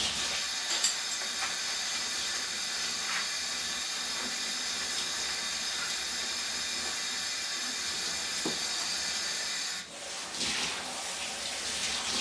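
Kitchen tap running in a steady stream into the sink while a sponge is rinsed out with plain water, shut off suddenly about ten seconds in; a few short handling noises follow.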